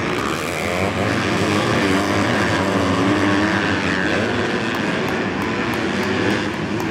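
Several motocross bikes racing, their engines revving up and down in pitch together.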